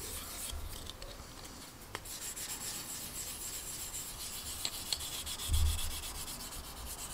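Polishing stick rubbed back and forth over a clear plastic model canopy, a steady fine scrubbing. This is the gritty side of the stick with fine scratch-remover polish, taking out the bigger scratches left after the canopy's centre seam was sanded out. A soft low thump comes a little over five seconds in.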